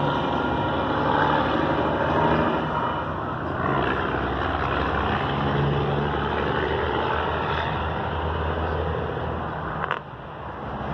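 Steady rumble of engines at a railroad crossing as the gates lift after a train has passed, with one sharp knock near the end.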